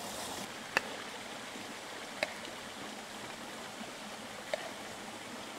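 Steady rush of a shallow stream running over rocks, with three short clicks of a metal spatula against a frying pan as fried rice is stirred and scooped out.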